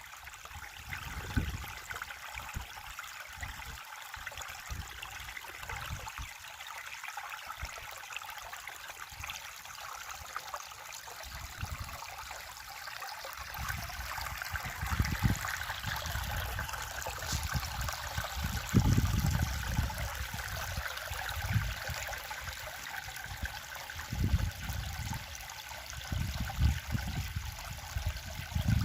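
River water flowing and rushing over its bed in a steady, even stream, with irregular low rumbles coming and going, loudest a little after the middle.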